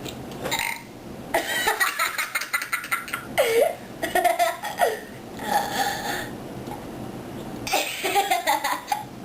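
A person laughing in several bursts, with short voiced sounds in between.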